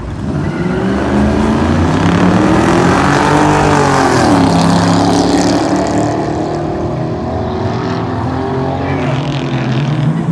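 Inline-six engine of an RB-swapped Nissan S14 revving hard as the car is driven around a lot. The pitch climbs for about three seconds, drops briefly about four seconds in, then holds high and climbs again near the end.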